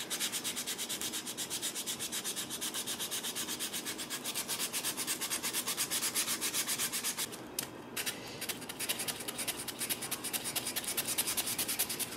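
Hand sanding of a bayonet's handle with abrasive paper: quick, even back-and-forth strokes, with a short break about seven and a half seconds in.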